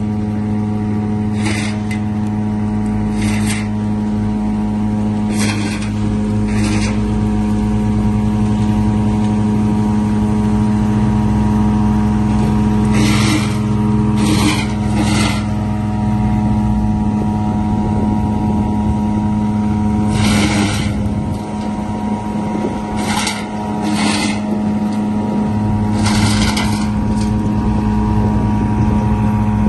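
Wheeled excavator's diesel engine running steadily under work, with short bursts of hissing every few seconds.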